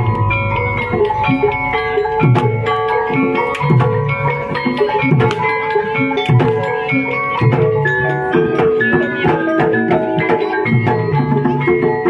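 Javanese gamelan ensemble playing for a kuda kepang dance: bonang kettle gongs and other metallophones ringing in many overlapping struck tones over repeated kendang drum strokes.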